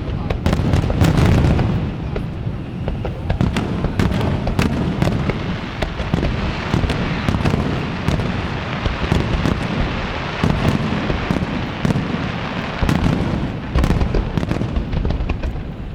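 Fireworks going off at close range in a dense, continuous barrage: many sharp crackles and pops over deep booming shell bursts that rumble on.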